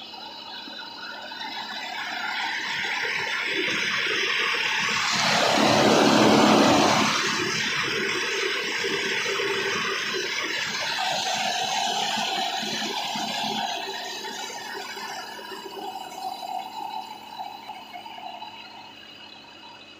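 Tractor-driven mobile rice mill running steadily while it mills Mansoori paddy, with a constant hum and whine from its huller, polisher and blower. A loud rushing noise swells about four seconds in, peaks near six to seven seconds, then eases back to the steady running sound.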